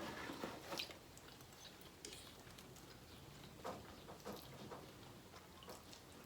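Faint eating sounds: quiet chewing with a few soft, irregular clicks.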